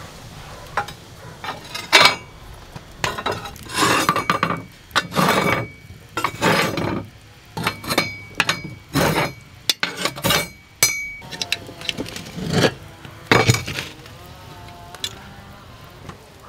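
Kitchenware clinking and knocking: a quick run of separate knocks and scrapes, some ringing briefly like glass or metal.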